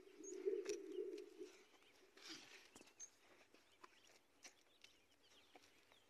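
Faint bird calls: a low call lasting about the first second and a half, and a couple of brief high chirps. Light footsteps and scuffs on dry soil can also be heard.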